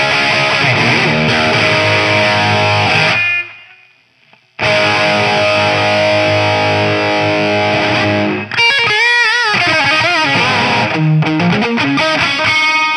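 Distorted electric guitar through a Mojotone British 800 kit tube amp, a JCM800-style 50-watt head. Two long ringing chords, the first choked off about three seconds in, then high notes held with a wide vibrato and a few single notes near the end.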